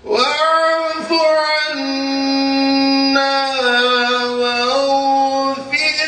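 A man reciting the Quran in the melodic tilawah style. His voice comes in after a pause and holds long, drawn-out notes that step down and up in pitch, with a short break near the end.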